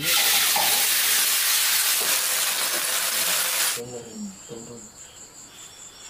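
A loud, even hiss cuts off abruptly about four seconds in. What is left is insects chirping in a high, pulsing trill.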